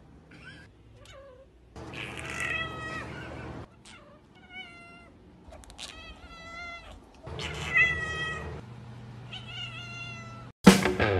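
A tabby cat meowing over and over: about five drawn-out meows of a second or so each, with a few faint short calls before them.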